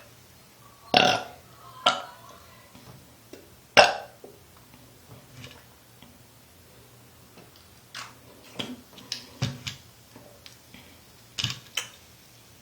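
A woman burping: a few short, separate burps, the loudest about a second in and just before four seconds in, followed by fainter short sounds later on.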